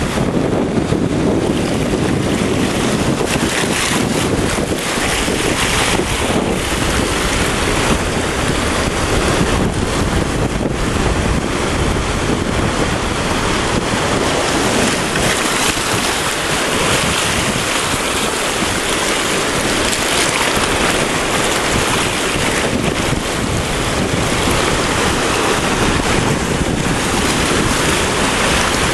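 Small ocean waves washing in over a rocky shoreline, with wind buffeting the microphone: a steady, unbroken rush.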